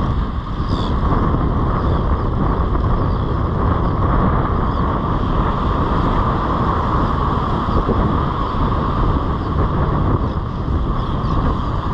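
Steady wind rumbling on the camera microphone over small surf waves breaking and washing up the sand.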